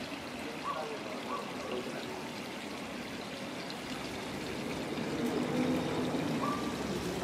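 Steady trickle of running water from a water channel in a paved park.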